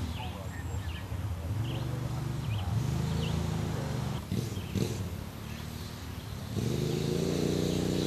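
Low, steady engine rumble that gets louder about two-thirds of the way through, with faint high chirps above it.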